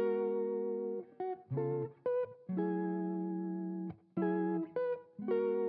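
Background music: a guitar playing held chords, each cut off sharply with short gaps between.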